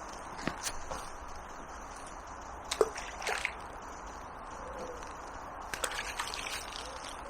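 Water sloshing and dripping with several sharp knocks and clicks, the loudest about three seconds in, against a steady hiss.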